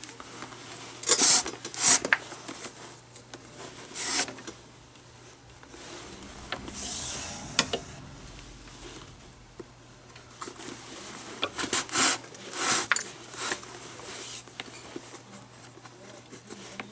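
Glove lace being drawn through the lacing holes of a leather baseball glove's fingers. It makes a string of rubbing, zipping swishes, one a longer pull about seven seconds in, with quieter handling of the leather between them.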